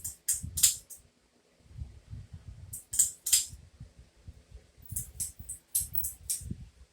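Metal ceiling-fan pull chains jingling and clinking against the fan housing in three short bursts, with soft low knocks. Underneath, the fan motor runs on high with a faint steady hum.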